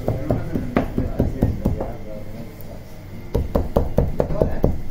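Rapid soft knocks and pats as the edge of a plastic dough scraper and fingertips press grooves into flattened barbari dough. The tapping thins out about two seconds in and picks up again, faster, about a second later.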